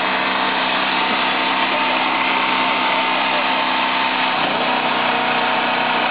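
Winch motor running steadily under load while hauling a tall tower upright, a constant mechanical hum whose pitch shifts about four seconds in.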